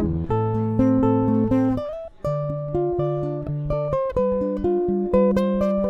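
Guitar strumming chords in a song's instrumental passage, with no singing. The chords change every second or so, with a short break about two seconds in.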